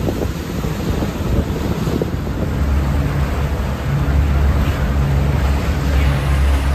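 Fishing boat running on the water: a steady low engine hum under heavy wind noise on the microphone and the rush of water along the hull, with a few knocks early on.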